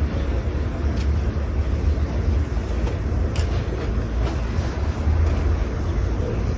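Outdoor neighbourhood-street ambience dominated by a steady, heavy low rumble, with a few faint short ticks about a second in and again past the middle.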